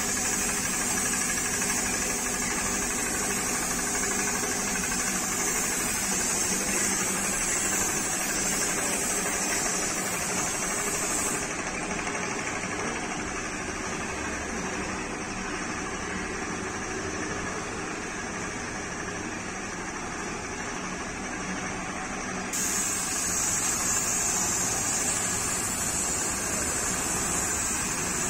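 Compressed-air spray gun hissing while spraying car paint, over a steady mechanical hum. The high air hiss stops about 11 seconds in and starts again about 22 seconds in.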